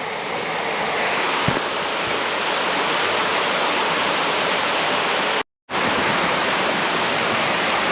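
Mountain creek water rushing steadily, with a brief drop to silence about five and a half seconds in.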